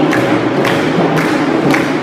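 Ensemble of djembe hand drums playing a West African drumming rhythm, dense and loud, with sharp accented strikes about twice a second.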